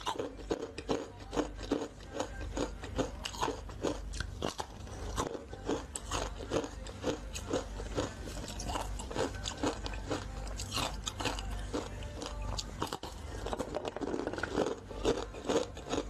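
Close-miked eating of frozen fruit pieces bitten from an ice-cube tray: a steady run of crisp crunches and chewing, bite after bite.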